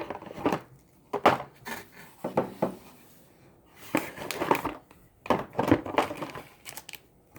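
Small food colouring bottles knocking and rattling together as they are handled and sorted through, in several short clusters of clicks and clatters.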